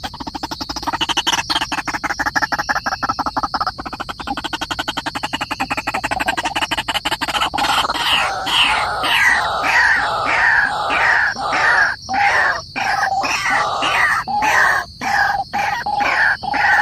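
Bird calls: a fast, even rattling trill for the first half, then repeated short notes sliding downward, about two a second, over a steady high thin tone.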